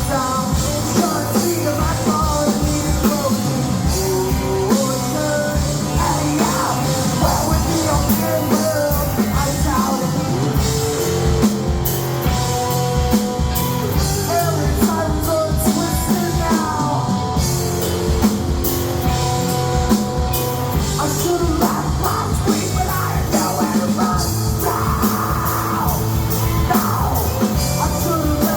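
Rock music played by a band, with a steady drum-kit beat and singing.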